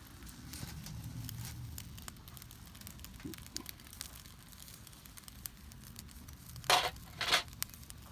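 Wood campfire crackling, with scattered sharp pops. Near the end come two short, louder hissing bursts about half a second apart.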